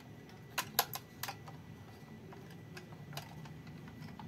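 Hard plastic toy train handled and turned over in the hands, giving sharp plastic clicks and taps: three louder ones in the first second and a half, then a few lighter ones.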